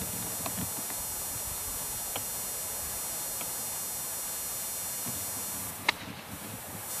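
A golf sand wedge striking the ball on a full approach swing: one sharp click near the end, over a steady background hiss.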